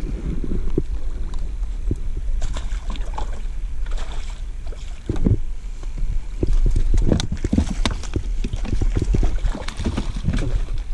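Irregular knocks and clatter of fishing gear and fish being handled aboard a kayak, over a steady low rumble of wind on the microphone.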